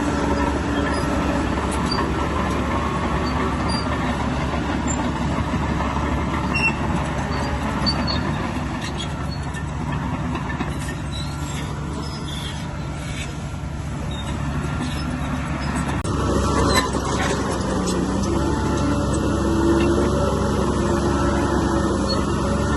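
Heavy diesel earth-moving machinery running under load, with scattered metallic clanks and a louder knock about two thirds of the way through.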